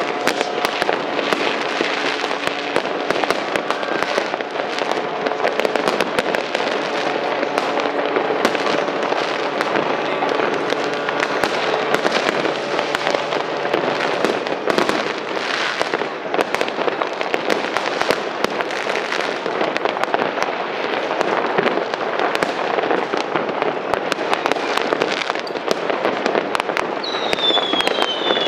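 Mass New Year's Eve fireworks: a continuous dense crackle of many rocket bursts and firecrackers going off at once, with a few high falling whistles near the end.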